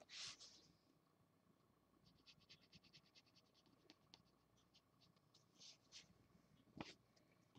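Felt-tip marker strokes on paper, faint: one longer stroke at the start, then a run of short quick strokes of about six a second, and a sharper knock near the end.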